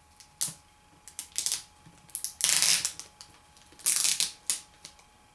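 Adhesive tape being peeled off a laptop's screen connector cable: scattered clicks and scratches, then two louder crackling rips about a second and a half apart, near the middle.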